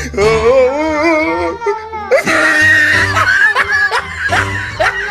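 Background music with laughter over it.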